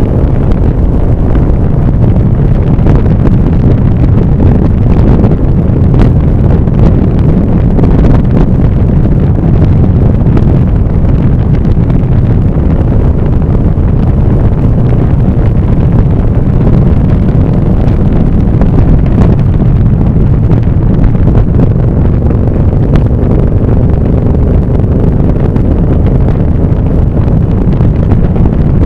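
Loud, steady wind rush on the microphone of a moving vehicle, with engine and road noise underneath.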